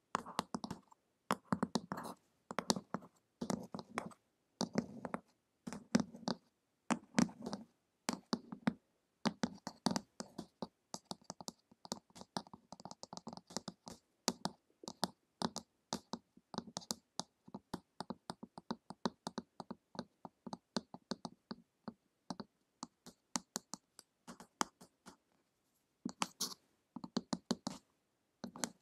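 Long acrylic fingernails tapping on a glossy printed cover, close to the microphones, in quick clusters of taps. From about nine seconds in the tapping becomes a fast, light patter of nail clicks, with a short pause near the end.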